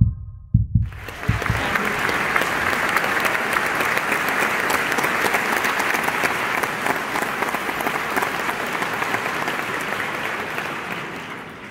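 Concert hall audience applauding: after a few low thumps in the first second, dense, steady clapping that begins to fade near the end.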